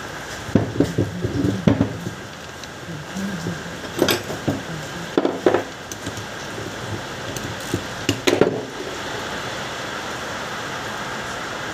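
Metal clinks and knocks of car starter motor parts and a socket wrench being handled on a workbench, in several short scattered clusters over a steady background hiss.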